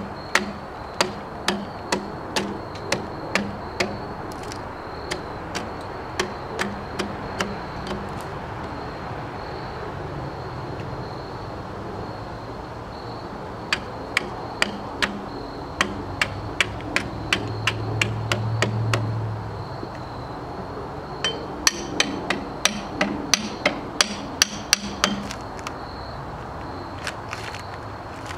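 Sharp metal knocks, about two a second, in three runs: a pry bar being driven under the bark of a pine log to pry it loose and peel it off.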